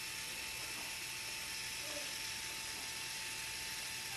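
Canon Ivy 2 mini photo printer running its paper-feed motor as it prints, drawing a sheet of Zink paper through: a steady mechanical whir with a thin constant whine.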